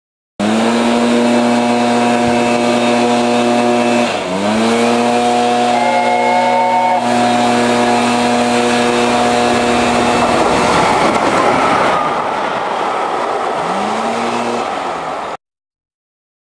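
LNER A4 Pacific steam locomotive's three-chime whistle sounding a long chord, held for about three and a half seconds, then blown again for about six seconds as the engine approaches. After that comes the noise of the locomotive and train passing at speed, with a short blast of the whistle near the end. The sound starts and stops abruptly.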